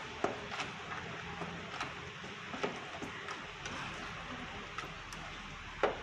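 A plastic spatula stirring soft, syrup-soaked bread pudding mixture in a plastic bowl, with irregular light taps and clicks of spatula against bowl over a steady hiss. The loudest tap comes near the end.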